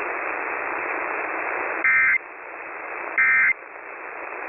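Emergency Alert System end-of-message (EOM) data bursts: short, shrill, buzzy digital bursts, about a second and a half apart, two of them plus a third starting at the very end. They play over radio static hiss, which grows quieter after the first burst.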